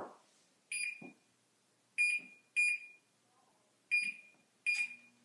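Electronic wall oven control panel beeping as its keys are pressed to set the oven to preheat: five short, high beeps at uneven intervals. A low steady hum starts near the end.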